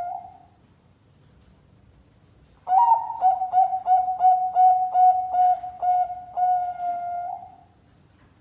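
Zebra dove (Bangkok perkutut) cooing. One song phrase trails off at the start. After a pause of about two seconds a new phrase begins: about a dozen quick, clipped coos at the same pitch, ending on a longer held coo that stops near the end.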